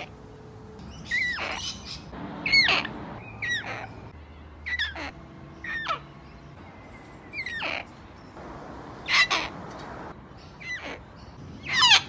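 Sulphur-crested cockatoos calling: a string of short, pitched squawks that bend in pitch, roughly one a second.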